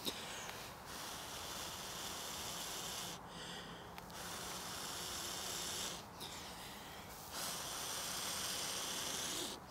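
A person blowing hard onto a smouldering cramp ball fungus (Daldinia concentrica) held in the fingers, feeding it oxygen to bring a caught spark up to a glowing ember. There are three long, breathy blows, with short pauses between them to draw breath.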